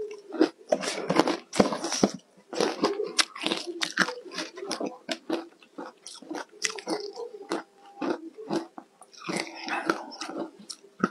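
Crushed, green-tinted ice being bitten and chewed close to the microphone: rapid, irregular crunches and crackles.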